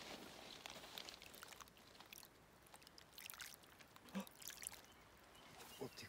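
Faint lapping of lake water at a pebble shore, with a few small, short splashes and ticks scattered through it.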